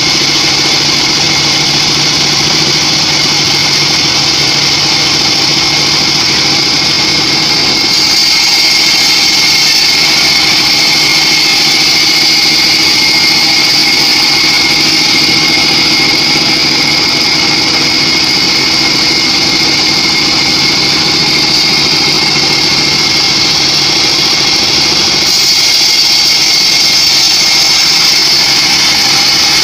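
Shop-built band sawmill running steadily as it saws a teak log: a high whine over the drive's hum. The high hiss shifts slightly about eight seconds in and again near the end.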